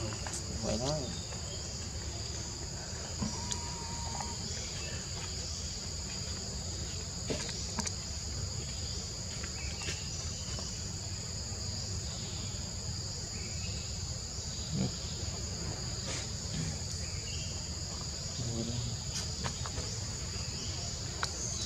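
Steady high-pitched insect chorus from the forest, a continuous drone at two pitches, with a low rumble underneath and scattered small clicks.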